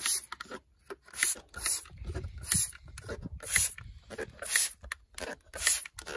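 Hand trigger-spray bottle spraying engine cleaner over the engine bay: a series of short hissing squirts, roughly one a second.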